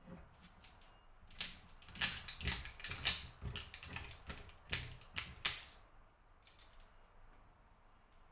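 Plastic packaging crackling and clicking as the seal is peeled off a bottle of raw honey: a quick, irregular run of sharp crackles, loudest around the middle, stopping about six seconds in.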